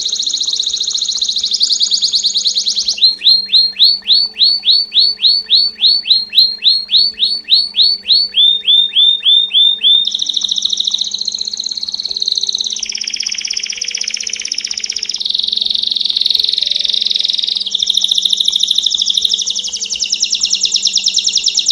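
Belgian canary singing a continuous song of trills and repeated notes. It opens with a fast rolling trill, then a run of clear repeated notes at about four a second, a short lower run, and from about ten seconds in long fast rolls that change pitch every few seconds.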